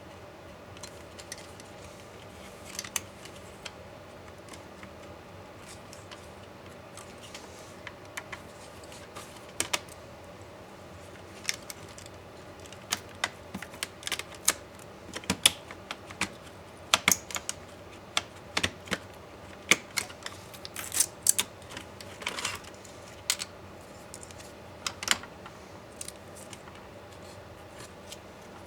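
Scattered clicks and taps of small plastic and metal laptop parts handled with hand tools during disassembly. The clicks come thick and fast in the middle stretch, over a faint steady hum.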